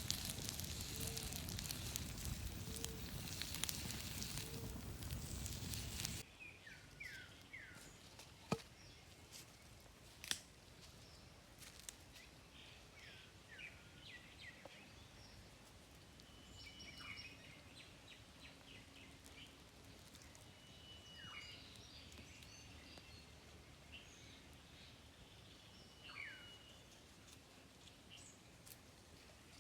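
A steady hiss with small crackles for about six seconds, cut off suddenly, then quiet outdoor ambience with birds chirping in short falling calls again and again, and a few sharp clicks.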